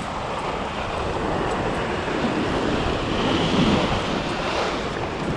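Ocean swell surging and washing up a rock ledge, swelling louder about three seconds in, with wind on the microphone.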